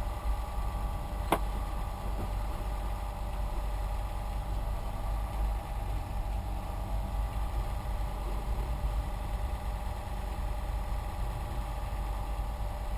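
Small 12-volt PC cooling fans running steadily with a hum and a steady whine. A single sharp click about a second in.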